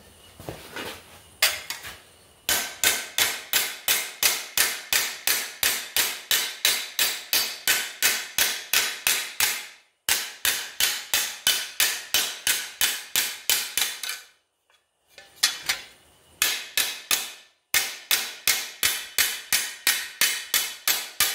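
Hammer blows on a heavy steel plate held over a bench vise, rolling its edge over: rapid, even strikes about four a second, in runs broken by a few short pauses.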